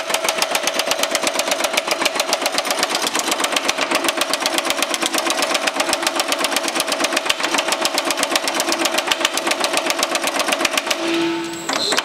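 Baileigh MH-19 power hammer striking a sheet-metal panel in a rapid, steady rhythm of blows as the panel is worked between the dies. The hammering pauses briefly just before the end, then starts again.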